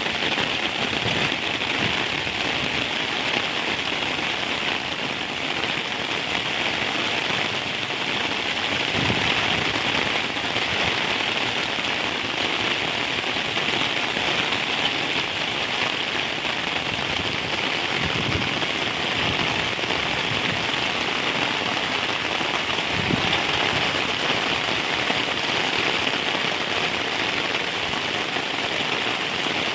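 Heavy rain falling steadily, a dense even hiss of drops on surfaces, with a few soft low thumps along the way.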